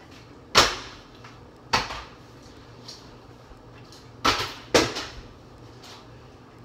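Partly filled plastic water bottles flipped and landing with a knock on a kitchen counter: four sharp knocks, the last two close together.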